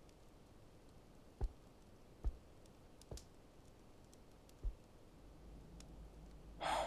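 Soft footsteps, four steps roughly a second apart, over quiet room tone.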